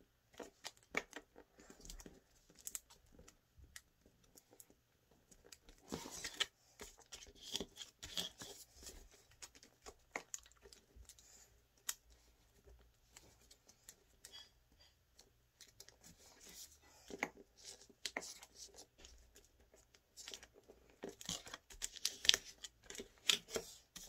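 A sheet of origami colour paper being folded and creased by hand: irregular crinkling and rustling with many small scattered clicks.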